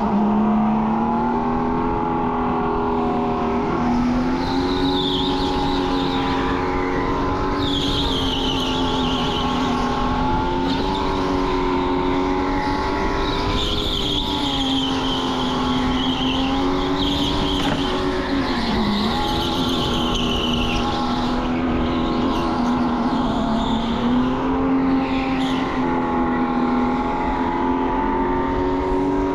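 Electric go-kart motor whining, its pitch rising and falling with speed through the corners, with tyres squealing in several of the turns.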